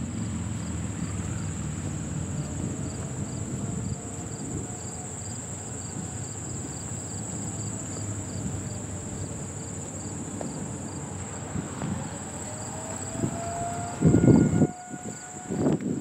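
Distant outdoor warning siren, faint, slowly rising in pitch as it winds up, under steady insect chirring with a regular chirp about twice a second. A brief loud low rumble comes near the end.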